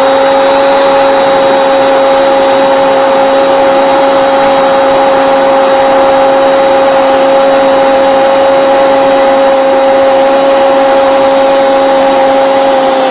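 Spanish-language football commentator's long drawn-out goal cry, "Gooool", held as one unbroken note at a steady pitch over the noise of a cheering stadium crowd. His voice falls in pitch and breaks off near the end.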